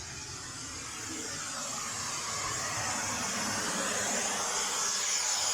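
Pink noise test signal played through loudspeakers: a steady, even hiss that grows gradually louder.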